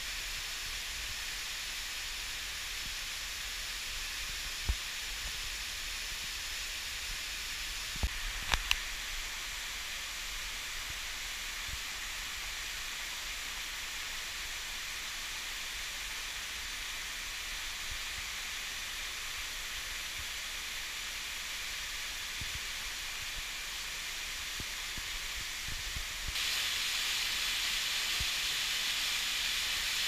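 Steady rushing hiss of a mountain waterfall splashing down a rock gorge. A few short knocks sound about a third of the way in, and the rush gets louder and brighter near the end.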